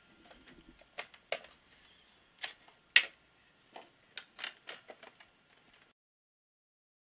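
A string of about a dozen irregular, sharp clicks and knocks, the loudest about three seconds in. About a second before the end the sound cuts out completely.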